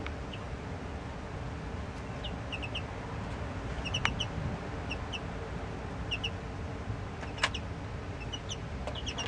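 Baby chicks peeping: short, high chirps, often in quick pairs or threes, scattered throughout over a steady low hum. Two sharp clicks stand out, about four seconds in and again near the end.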